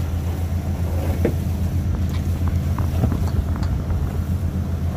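A steady low engine hum, with a few light taps and clicks.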